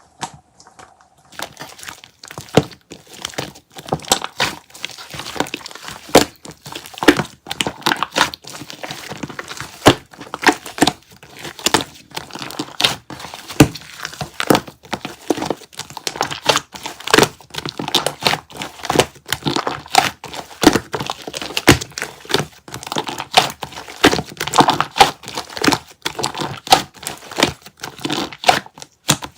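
Slime being handled: squeezed, poked and stretched, giving a dense, irregular run of sharp clicks and crackles that starts about a second in.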